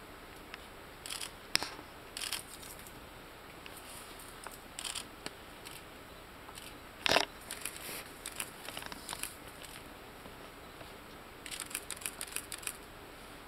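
Mountain gorillas feeding in thick vegetation: irregular snapping, tearing and crunching of stems and leaves. The sharpest cracks come about a second and a half in and again about seven seconds in, with a quick run of crackles near the end.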